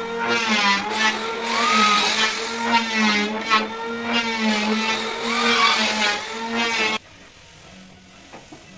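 Corded electric drill running under load as it bores into a wooden bed-frame post, its hum wavering slightly as the bit bites. It stops abruptly about seven seconds in.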